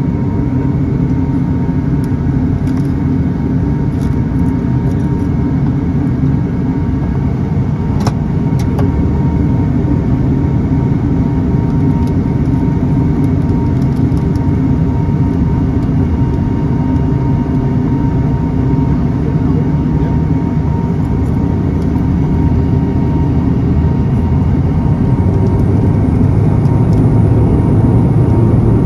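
Pilatus PC-12's single PT6A turboprop engine and propeller heard from inside the cabin while taxiing: a steady drone with a faint high whine, growing a little louder near the end.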